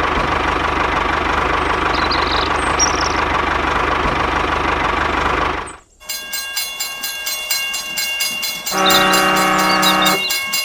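Train sounds: a steady rumble that breaks off about six seconds in, then a fast, regular clicking with one horn blast lasting about a second and a half near the end.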